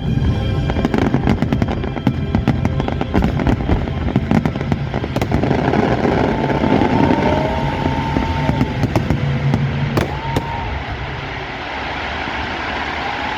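Fireworks salute: rapid crackling and bangs of bursting shells, densely packed at first, then thinning out and stopping about ten seconds in.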